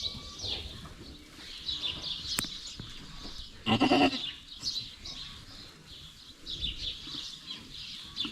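A goat bleats once, a short call about halfway through, over faint high chirping. It comes during a doe's labour, as the water bag emerges.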